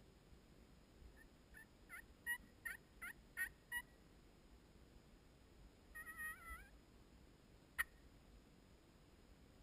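Turkey yelping: a run of about eight short yelps at roughly three a second, then a brief rising call about six seconds in and a single sharp cluck near the end. The calls are faint.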